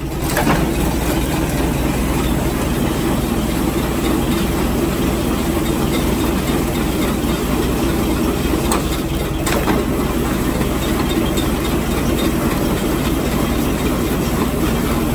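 Feed grinder running steadily while grinding corn, a continuous mechanical din.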